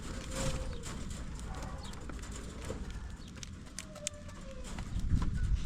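Poultry pen sounds: faint short bird calls with scattered clicks and knocks, and a low rumble that grows louder near the end.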